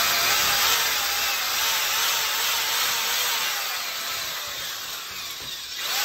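Corded electric drill boring a hole into brick, a steady grinding with the motor's pitch wavering under load. It eases slightly about five seconds in, then bears down again.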